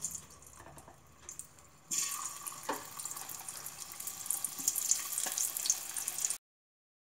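Small boiled potatoes dropped by hand into hot oil in a kadhai, deep-frying with a hissing sizzle and scattered crackles. The sizzle jumps much louder about two seconds in as more potatoes go in, then cuts off suddenly about six seconds in.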